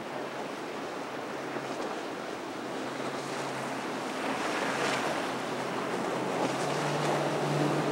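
Center-console fishing boat's outboard engines running at speed with a steady low drone, growing louder as the boat approaches, over the rush of hull spray, water and wind.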